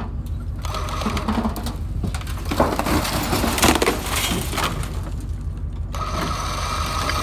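A rusted 1979 Ford truck cab is winched off its frame: the winch whines as it pulls, then about two and a half seconds in the steel cab scrapes, crunches and clatters as it falls to the ground for about two seconds. The winch whine returns near the end, over a steady low hum.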